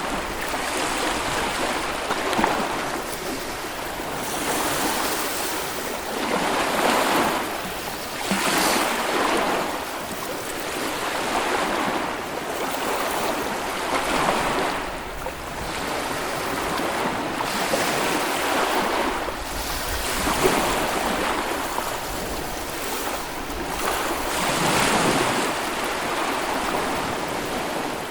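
Small Baltic Sea waves breaking and washing up the beach, swelling and ebbing every few seconds.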